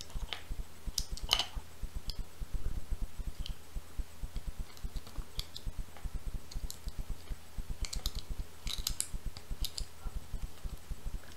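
A bar of soap being cut with a utility knife: small crisp clicks and crackles as the scored cubes snap off under the blade, clustered about a second in and again near the end, over a steady patter of faint low thuds.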